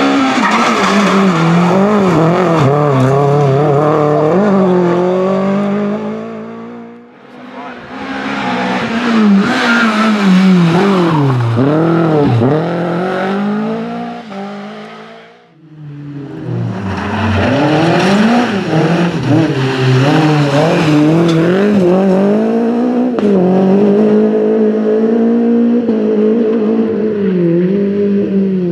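Renault Clio Williams Group A rally cars' 2.0-litre 16-valve four-cylinder engines at full throttle on a stage, in three passes one after another. In each, the engine note rises and falls repeatedly as the driver revs up and changes gear.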